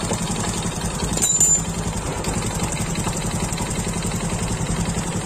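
Honda Supra X single-cylinder four-stroke engine idling with a repeated tak-tak-tak knock, with a brief louder clatter about a second and a half in. The knock comes from a worn, barrel-shaped cylinder bore that leaves too much clearance for the piston, a deceptive noise easily mistaken for steering, clutch-housing or clutch-lining noise.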